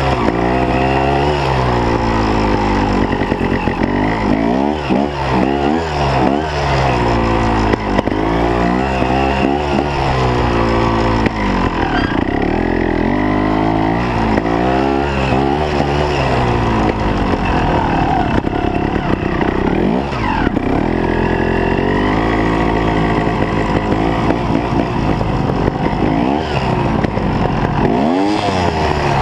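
Trials motorcycle engine revving up and down as the bike is ridden, its pitch rising and falling with the throttle every second or two.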